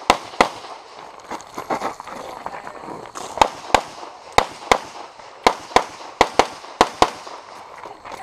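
Semi-automatic pistol fired in quick pairs, a dozen or so shots: one pair at the start, a pause of about three seconds, then five pairs in a row, the shots in each pair about a third of a second apart.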